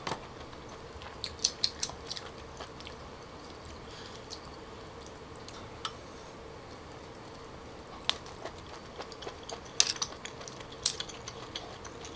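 Close-up eating of boiled ark clams: scattered sharp clicks of the shells being handled and pried apart, a few in quick clusters, with quiet chewing between them.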